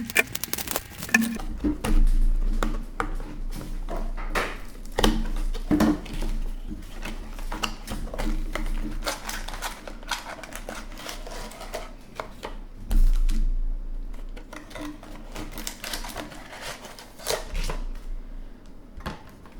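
A trading card blaster box and its wrapping being torn open and handled: a dense, irregular run of crackles, clicks and rustles.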